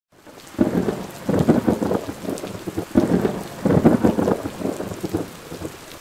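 Thunderstorm sound: steady rain hiss with two long rolls of thunder, the first starting about half a second in and the second about three seconds in, dying away toward the end.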